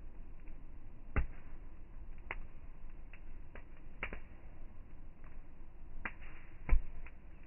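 Campfire wood crackling, with irregular sharp pops every second or so; two louder pops come about a second in and near the end.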